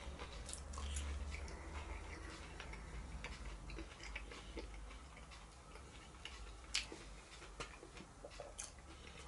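Quiet, close-miked eating: chewing, with soft irregular clicks and taps as a metal fork picks at vegetables in a cardboard takeaway box. One sharper click comes about two-thirds of the way through.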